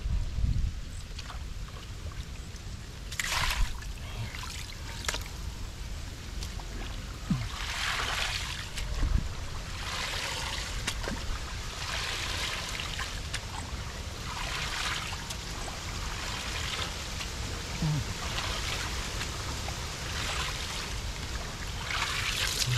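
Shallow muddy water splashing and trickling in repeated swells every second or two, as hands scoop through a small drying field pool.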